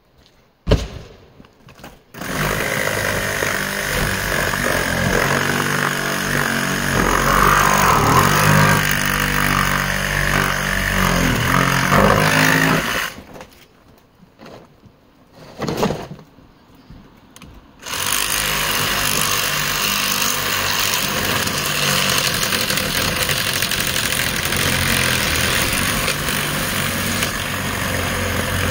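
A reciprocating saw (Sawzall) cutting into the RV's body and frame, in two long runs with a pause of a few seconds between them. A single sharp knock comes just before the first cut.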